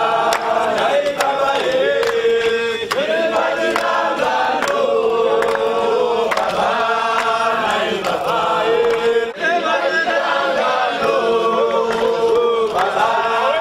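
Crowd of demonstrators singing a protest song together, many voices in unison with long held notes.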